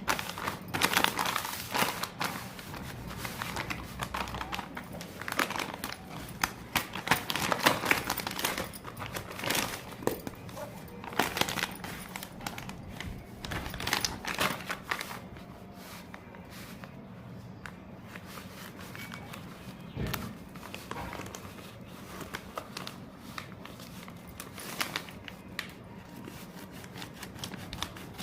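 Plastic wrapper of Cadbury Gems chocolates crinkling and rustling as it is handled, in dense bursts for about the first half, thinning to scattered crackles later.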